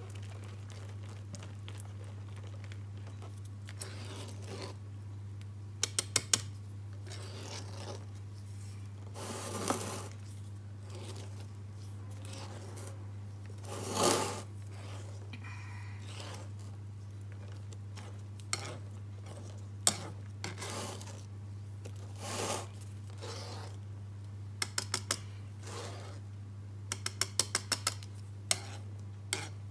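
Utensils clinking and tapping against dishes and pans in quick clusters, with a few short scraping swishes, over a steady low hum.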